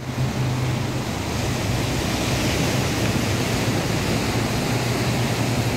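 Sea surf washing onto a sandy beach: a steady, even wash of breaking waves, with a constant low hum underneath.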